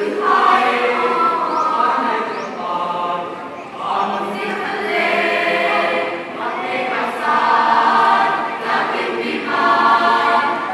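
A school choir singing a choral piece in harmony, many voices holding long notes, with a short breath between phrases about four seconds in.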